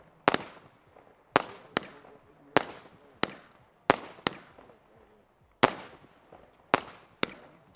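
A firework battery (cake) firing shot after shot: about ten sharp bangs at uneven spacing, each trailing off in echo.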